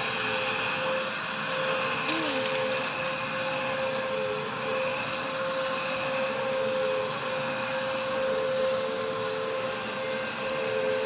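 Vacuum cleaner running steadily over carpet while picking up dog hair, a constant motor whine over its rushing airflow, with a few brief clicks about two to three seconds in.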